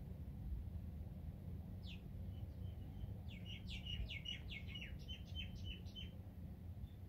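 A songbird singing: from about two seconds in, a quick run of high, downward-sliding chirps that lasts about four seconds, with a few short notes near the end. A low steady rumble lies underneath.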